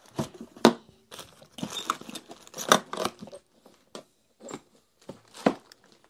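A thin plastic bag liner crinkling and rustling, with several sharp clicks and knocks of the vacuum's plastic housing being handled. Irregular, with no motor running.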